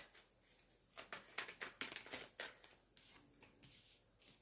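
Tarot cards being handled and laid down: a quick run of faint, light card rustles and flicks about a second in, then a few scattered ones.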